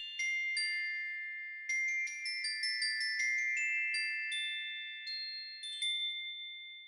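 Magic sparkle sound effect: high, bell-like glockenspiel or chime notes struck one after another and left ringing. A quick flurry of notes comes about two seconds in, then a few single notes that ring out and fade.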